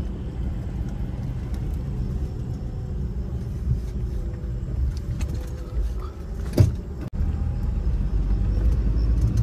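Car driving at night heard from inside the cabin: a steady low rumble of engine and road noise, with one sharp knock about two-thirds of the way through.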